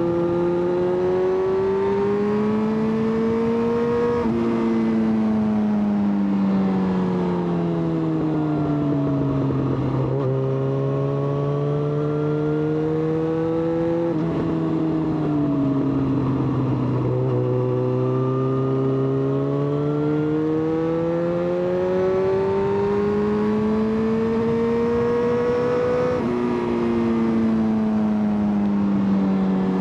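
Yamaha XJ6's inline-four engine under way, its pitch climbing slowly as the bike accelerates and sinking as it slows, with several sudden pitch steps from gear changes.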